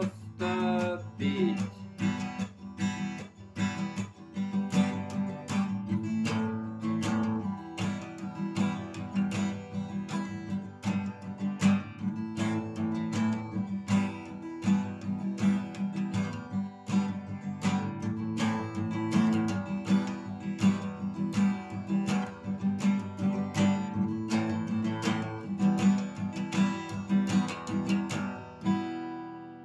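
Acoustic guitar strummed in a steady rhythm as the song's instrumental outro. The strumming stops near the end and the last chord dies away.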